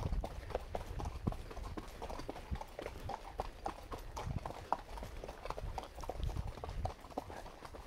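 Horse's hooves clip-clopping on a dirt and gravel trail, a steady run of uneven hoofbeats several times a second.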